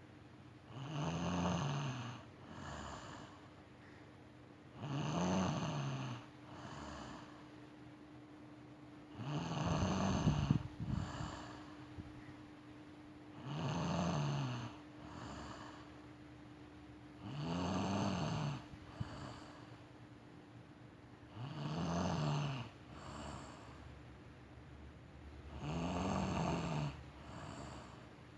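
A sleeping young woman snoring in a steady rhythm, one snore about every four seconds, seven in all. Each loud snore rises and falls in pitch and is followed about a second later by a shorter, softer one.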